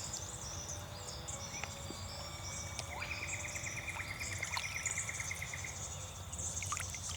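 Insects and birds calling: high chirps throughout over a faint steady high buzz, with a rapid pulsing trill starting about three seconds in and lasting about two seconds.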